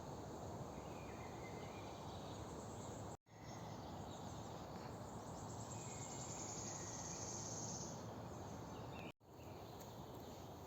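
Steady rustle of wind in tree leaves with faint birdsong chirps. A high, thin trill runs for several seconds in the middle. The sound drops out briefly twice, where the clips are cut.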